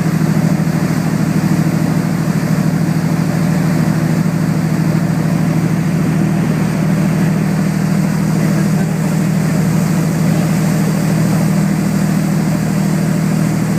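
A boat's engine running steadily in a loud low drone, with a hiss of wind and water over it.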